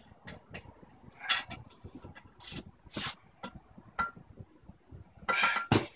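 Irregular metallic clicks, clinks and short scrapes of bolts, nuts and hand tools being handled on steel, a couple of them with a brief metallic ring.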